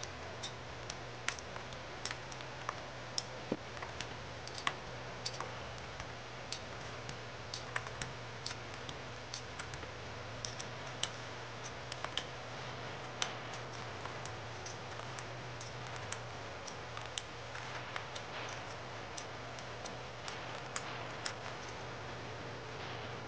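Royal Kludge RK87 mechanical keyboard being stripped by hand: irregular sharp plastic clicks, roughly one or two a second, as parts pop off one at a time.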